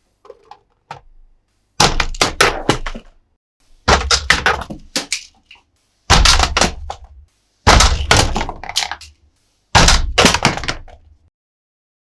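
Hard plastic toy parts knocking and clattering in five rattling bursts about two seconds apart, each starting with a thunk and trailing off in quick clicks, as toy monster trucks crash on the plastic playset.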